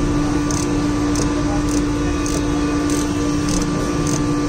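Steady machine hum with a constant low drone and faint regular ticks, a little under two a second.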